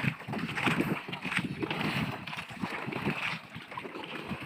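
Water splashing and sloshing against a bamboo-outrigger fishing boat's hull as a fishing net is fed over the side, with some wind on the microphone. It is uneven, with no steady engine sound, and eases off in the last second or so.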